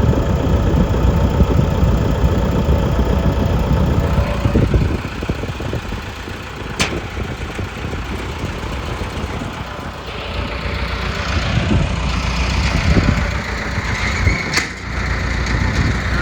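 John Deere 225D LC hydraulic excavator's diesel engine running, louder for the first four seconds or so and then dropping to a lower level. Two sharp clicks stand out, about seven and fifteen seconds in.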